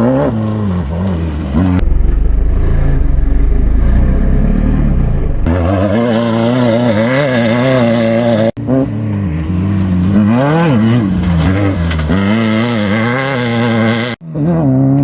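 Off-road race vehicle engines revving hard, the pitch rising and falling again and again, in several clips joined by abrupt cuts.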